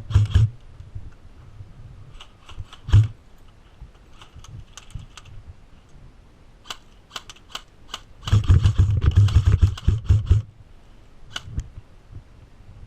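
Scattered sharp clicks and knocks from close-up airsoft play, with one heavy thump about three seconds in and a dense two-second stretch of clatter and low thumps about two-thirds of the way through.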